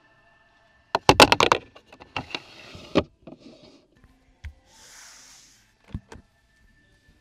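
Handling sounds in a car's centre console: a quick run of loud clicks and knocks about a second in, a few more knocks, and a soft rustle. About six seconds in, the centre armrest lid's latch clicks open.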